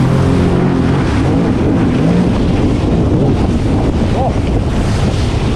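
Sea-Doo Spark Trixx personal watercraft running under way, its engine's tone steady under a constant rush of spray and water against the hull, with wind buffeting the microphone.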